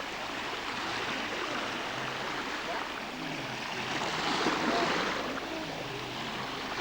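Sea waves washing on the shore: a steady rush of surf that swells about four seconds in.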